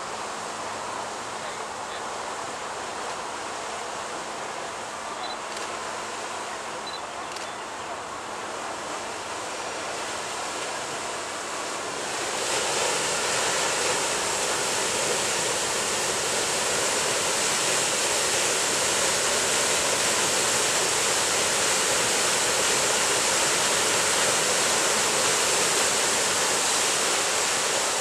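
Paddle wheels of the paddle steamer La Suisse churning the lake water as she berths: a steady rushing of water that turns sharply louder about twelve seconds in, when the wheels thrash the water into white foam.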